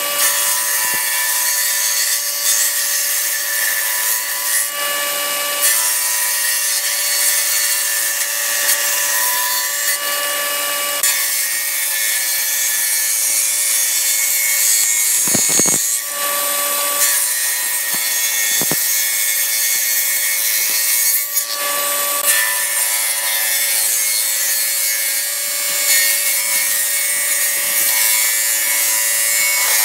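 Table saw running, its circular blade ripping lengthwise through a thick wooden beam. A steady motor whine sits under the hiss of the cut, and the sound shifts every few seconds.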